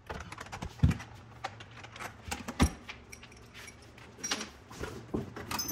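Handling noise of small metal parts and tools: scattered clicks and light clinks, with two dull knocks, one about a second in and one near the middle.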